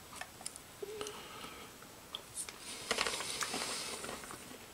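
A person chewing a spoonful of beef patty in tomato sauce with broken crackers, close to the microphone: scattered small clicks and mouth sounds, with a longer stretch of chewing about three seconds in.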